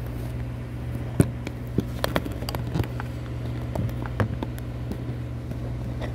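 Handling noise of a phone being picked up and repositioned by hand: scattered clicks and knocks over a steady low hum.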